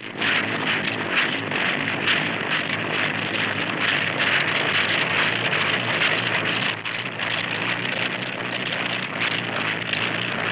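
Engine of a homemade disc-propeller lifting machine running steadily, driving its large flat disc propeller, heard as a dense mechanical rush on an old newsreel soundtrack.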